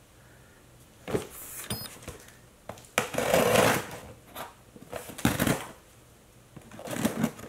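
Scissors slitting the packing tape on a cardboard shipping box, with scraping and cardboard rustling in a few separate bursts, the longest about three seconds in.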